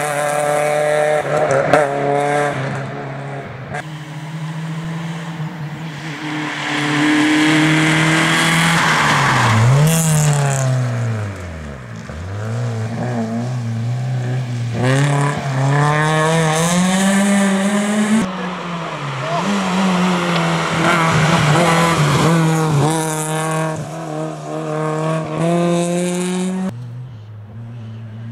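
Suzuki Swift rally car's engine driven hard on a stage, its pitch climbing and dropping again and again through gear changes and lifts. About ten seconds in the revs fall right down and then build up again.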